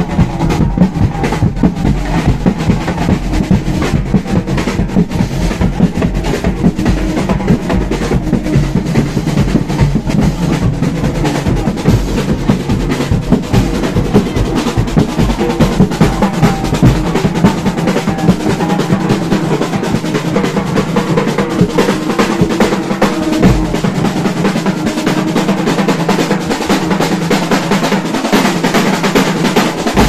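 Carnival groupe à pied drum band playing: large painted barrel drums and snare drums beaten with sticks in a dense, driving rhythm.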